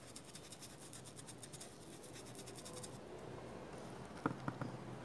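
Paintbrush scrubbing paint onto a rubber mat: a rapid run of faint scratchy strokes for about three seconds, then a few light knocks about four seconds in.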